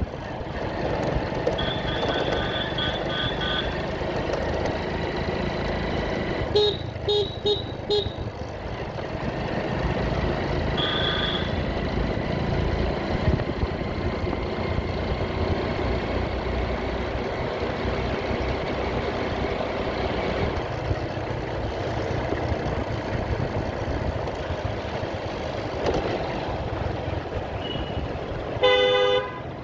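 Steady road and engine noise of a motorcycle ride in traffic, with vehicle horns beeping in quick series: a run of short beeps about a second in, four sharp beeps about seven seconds in, a single short beep around eleven seconds, and a harsher horn blast near the end.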